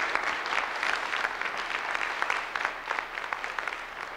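Audience applauding: a dense patter of many hands clapping, loudest at the start and slowly tapering off.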